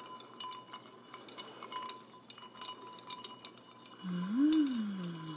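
A spoon stirring ice in a wine glass, making rapid, irregular clinks against the ice and glass. Near the end a voice gives a short hum that rises and falls in pitch.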